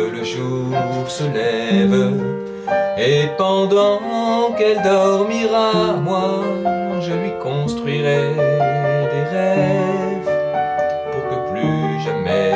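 Upright piano played with both hands: a chord accompaniment in the lower notes under a melody line above, continuous throughout.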